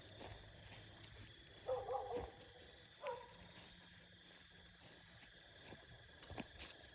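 Two short pitched animal calls, the first about two seconds in and lasting about half a second, the second a second later and shorter. The source is unidentified.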